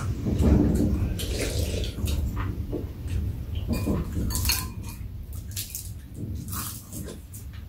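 Eating at a table: metal chopsticks and a spoon clicking and tapping against bowls, with mouth noises of eating, in many short irregular clicks.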